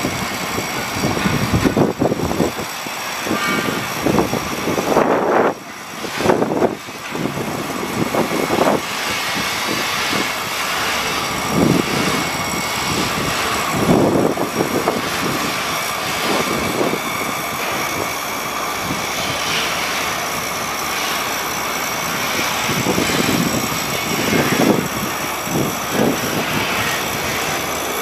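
An engine running steadily, with irregular louder swells.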